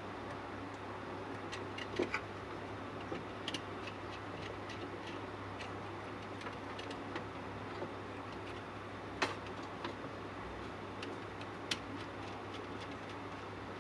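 Scattered, irregular light clicks and taps, with a louder one about two seconds in and another near nine seconds, over a steady low hum.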